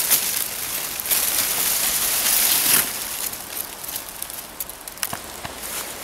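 Grass and forest undergrowth rustling close to the microphone as it is pushed aside, loudest for about the first three seconds, then quieter with a few scattered snaps and crackles.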